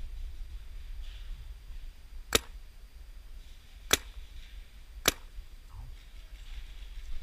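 Three single paintball marker shots, sharp pops about a second and a half apart.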